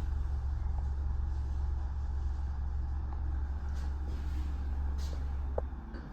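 Evolution Lifts passenger lift travelling down from the first floor to the ground floor: a steady low hum of the moving car and its drive, which stops shortly before the end as the car arrives, with a light click just before it stops.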